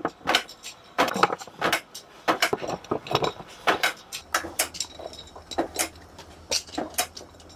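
Small hard parts clinking and knocking against each other as they are handled, several sharp irregular strikes a second. A low steady hum comes in about halfway through.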